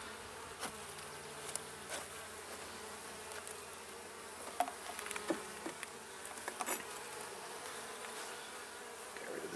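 Honeybees buzzing steadily around an open hive, a low even hum from the colony, with a few faint light clicks scattered through it.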